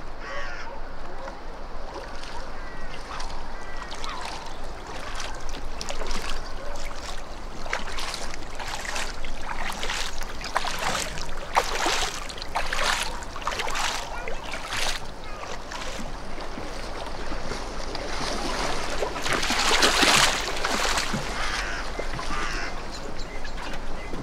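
Kayak paddle strokes splashing in the river, with waterfowl calling between them. The splashes come in a quick run through the middle, and the loudest, longest splash comes near the end.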